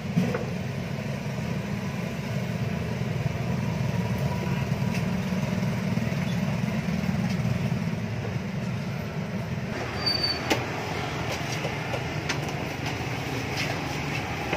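Street traffic with motorbikes: a steady low engine rumble that about ten seconds in gives way to lighter road noise with scattered clicks.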